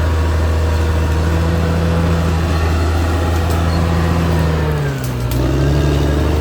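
Caterpillar D6R XL bulldozer's diesel engine running steadily. About five seconds in, its note drops briefly and then climbs back.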